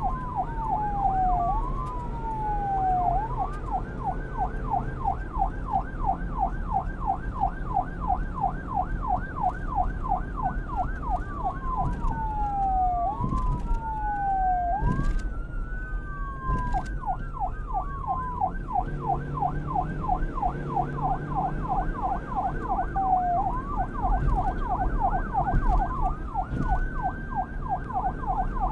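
Electronic police siren switching between a fast yelp and slower wail sweeps that fall and rise in pitch, over a steady low rumble.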